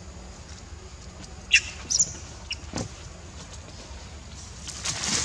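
A few short, high squeaky chirps about a second and a half and two seconds in, over a steady low background hum, then a louder rustle of leaves and undergrowth near the end.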